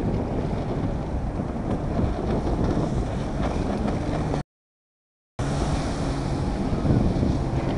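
Wind buffeting the microphone over running water and the drone of a jet ski engine out on open water. The sound drops out to total silence for about a second, about four seconds in, then resumes.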